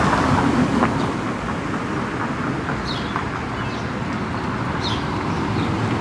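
Steady outdoor background noise, a low rumble with hiss, with two faint short high chirps about three and five seconds in.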